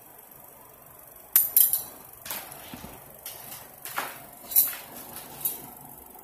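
A handful of sharp clicks and knocks, about six in all, each short and separate. The loudest are a quick pair about a second and a half in and another near four and a half seconds.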